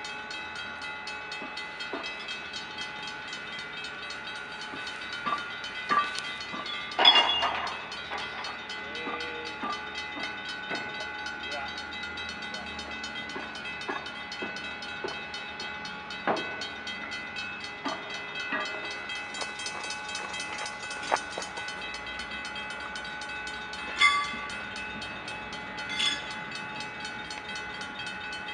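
Railway level-crossing warning bell ringing steadily, with a few sharp knocks, the loudest about seven seconds in.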